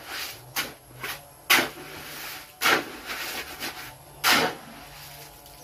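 A series of about seven short, rough scrapes from masonry work on a hollow-block wall, the loudest near the start and about four seconds in.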